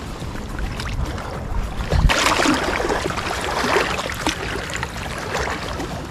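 Small waves lapping and splashing at a rocky shoreline, growing to a louder wash of water from about two seconds in until about four and a half seconds, with a low rumble underneath.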